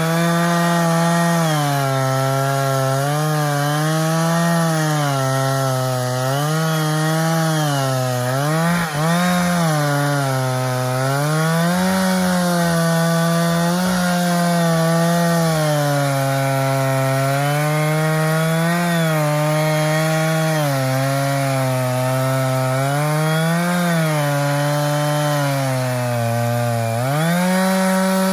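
Stihl 660 Magnum two-stroke chainsaw on an Alaskan chainsaw mill, ripping lengthwise through a long log under heavy load. The engine pitch sags and recovers every second or two as the cut loads it, with a brief dip about a third of the way in and the revs climbing near the end.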